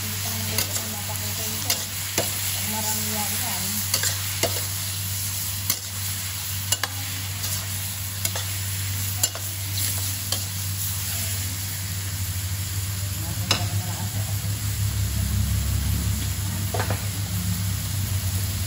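Squid sizzling in hot oil in a stainless steel pan, stirred with a metal slotted turner that clicks and scrapes against the pan now and then. A steady low hum runs underneath and grows louder near the end.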